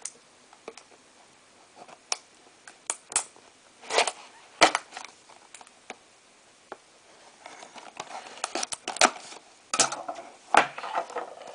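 A taped clear plastic retail box being cut open with a knife and handled: scattered clicks, taps and scrapes of plastic, with two sharper knocks about four seconds in and a busier run of crinkling and scraping in the last few seconds.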